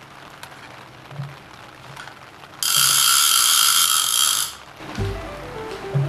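A loud mechanical whirring with a ratchet-like buzz, starting abruptly about two and a half seconds in and stopping about two seconds later; background music with bass notes follows near the end.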